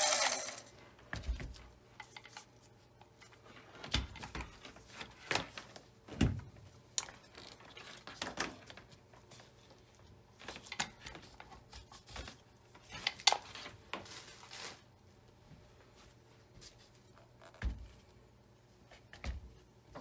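A Singer Featherweight 221 sewing machine being handled: its motor's whir cuts off in the first half second, then come scattered knocks, clicks and light metal clatter as the machine is turned and moved, with a few louder knocks.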